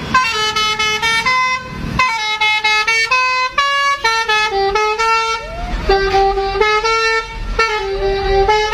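A lorry's multi-tone 'telolet' musical air horn playing a quick tune of short stepped notes, with short breaks between phrases.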